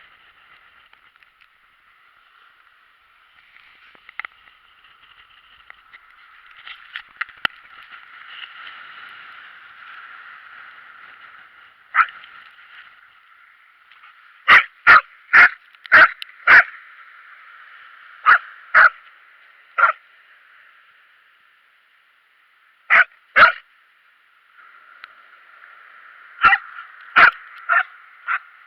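A dog whining, then barking in short runs of quick, sharp barks from about halfway through, with pauses between the runs.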